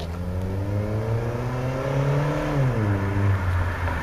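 Honda Accord's engine through an N1 cat-back exhaust with its silencer insert fitted, accelerating as the car comes closer. The pitch climbs for about two and a half seconds, then falls.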